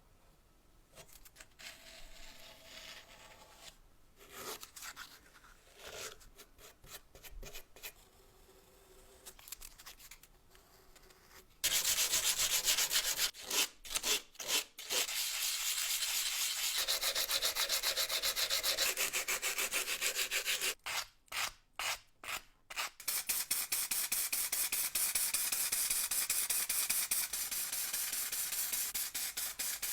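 Sanding and abrasive rubbing on the old apple peeler's parts. Quiet, irregular scratching strokes turn into a loud, steady scrubbing hiss about twelve seconds in, which stops briefly a few times.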